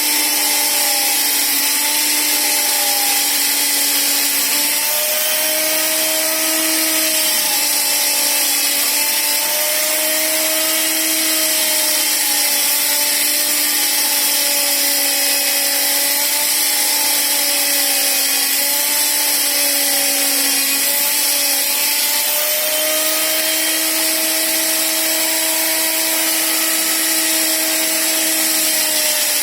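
Electric power tool motor running steadily and loudly for the whole stretch, a constant whine whose pitch drifts slightly.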